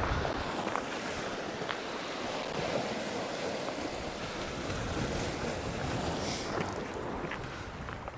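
Sea waves washing and breaking against a rocky shore, with wind buffeting the microphone and a few faint clicks.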